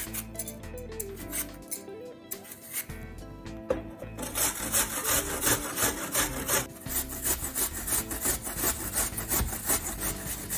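Apple being peeled with a metal Y-peeler, then, from about four seconds in, apples grated on a stainless steel box grater: quick, rhythmic rasping strokes of apple flesh against the metal teeth, louder than the peeling.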